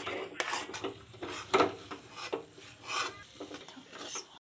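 A spatula scraping and stirring thick, dough-like mango milk cake mixture around a kadhai, in uneven strokes about every half second to a second. The mixture is being cooked down until it comes away from the sides of the pan, ready for setting.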